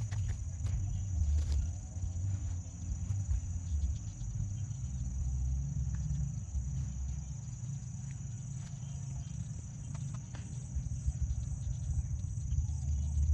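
Steady high-pitched insect drone over a low, uneven rumble, with a few faint clicks.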